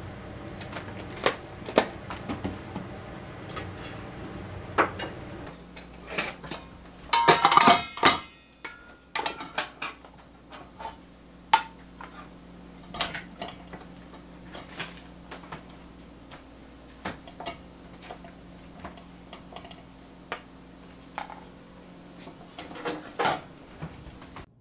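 Stainless-steel bowl knocking and scraping against a rice cooker's inner pot as cooked rice is scooped out, with light clinks scattered throughout and a burst of clattering about seven to eight seconds in. A low steady hum underneath drops away about five seconds in.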